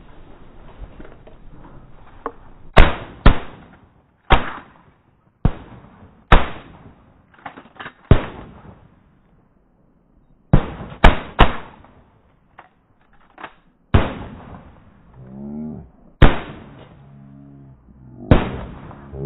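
Several shotguns firing in a volley: about a dozen loud blasts over some fifteen seconds, some in quick pairs, each with a short ringing tail.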